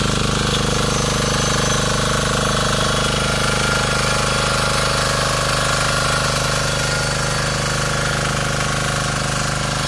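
Diesel engine of a Bertolini 215 walk-behind tiller running steadily, with a fast, even knocking beat.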